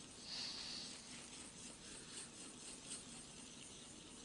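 Faint rubbing and scraping of a thin paintbrush stirring red and blue acrylic paint together on a sheet of paper, a little louder for a moment just under a second in.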